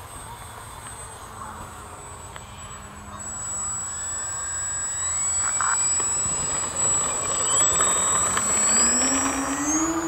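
Twin motors and propellers of a radio-controlled model de Havilland Mosquito, throttled up for the takeoff roll. A high whine grows louder a few seconds in, then climbs in pitch as the plane speeds up and lifts off.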